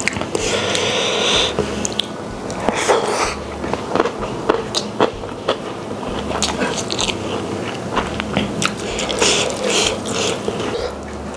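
Close-miked eating sounds: wet chewing and lip smacking on a mouthful of rice eaten by hand, with many short, sharp mouth clicks.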